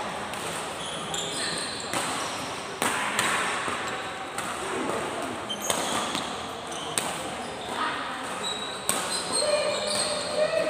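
Badminton rally: sharp racket-on-shuttlecock hits about once a second, with sneakers squeaking on the court floor and voices in the background.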